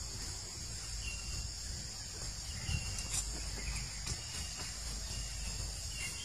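A steady, high-pitched insect chorus, cricket-like, over a low rumble, with a few faint short chirps and ticks.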